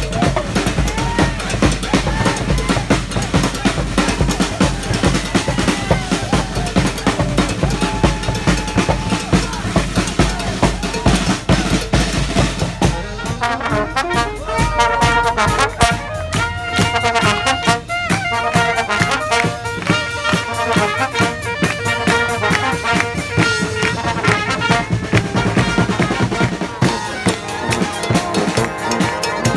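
Live street marching band of brass and drums playing: horns over snare and bass drum. About halfway through, the heavy low drums and bass thin out and the horn lines come to the front.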